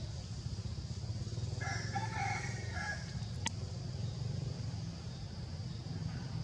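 A rooster crows once, about two seconds in, the call lasting over a second, over a steady low hum. A single sharp click follows about a second later.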